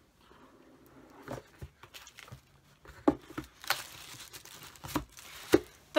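Crinkling and rustling with a few light knocks as a gift is handled and picked up, the loudest crinkle a little past the middle and a sharper knock near the end.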